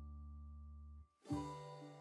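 Background music on plucked strings: a chord rings and fades, breaks off about a second in, and a new chord is struck a moment later.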